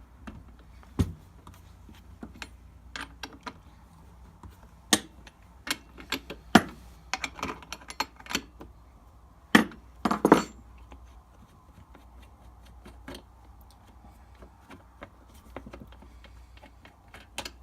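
Scattered metal clicks, clinks and knocks of hand tools and parts as the clutch cover and guide bar are taken off a Stihl MS 261 chainsaw, with a cluster of louder knocks about ten seconds in.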